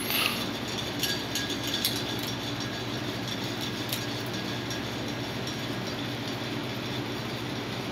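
Hampton Bay ceiling fan running, its motor giving a steady hum with an even whir of the blades; the fan is out of balance and vibrates. A few sharp clicks come in the first two seconds.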